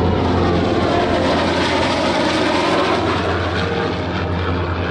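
An F-35A Lightning II and a P-51 Mustang flying past together in formation: a loud, steady jet roar with the propeller plane's engine in it, easing slightly near the end.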